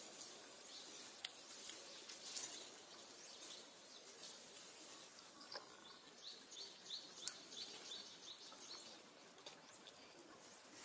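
Faint outdoor ambience. A small bird chirps a quick run of short, high notes a little past halfway, and there are a few sharp clicks.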